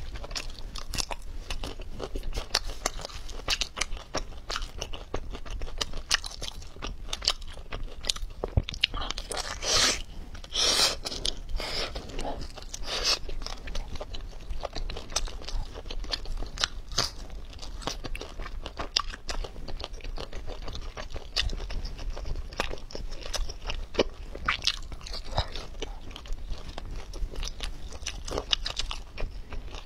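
Close-miked chewing and biting of braised octopus: wet smacks and crunchy clicks throughout, with a busier, louder run of crunches from about ten to thirteen seconds in.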